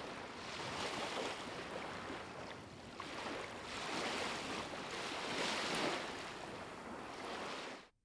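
Wind-driven waves on open water: a steady rushing wash that swells and eases every couple of seconds, cutting off suddenly near the end.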